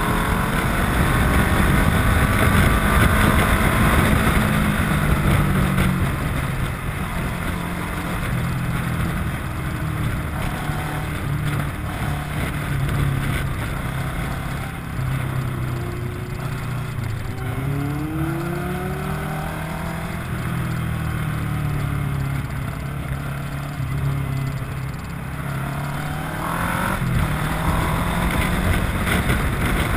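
Kawasaki ER-6n's parallel-twin engine running on the move, revs rising and falling through the bends in several sweeps, with steady wind noise over the microphone.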